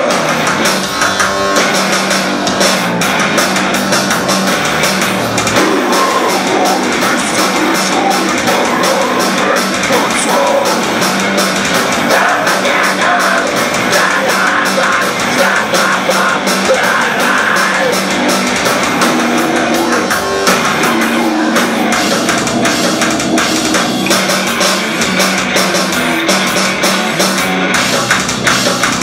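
A rock band playing live and loud: electric guitars and drums, with a man singing into the microphone.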